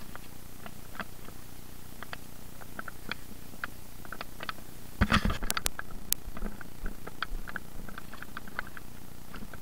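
Scattered light clicks and ticks, with a brief, louder clatter of knocks and a few sharp clicks about halfway through.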